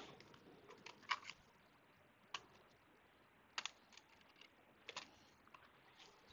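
Four faint, sharp clicks about a second apart: small parts being handled inside an opened Dell XPS 13 Plus 9320 laptop. Between them, near silence.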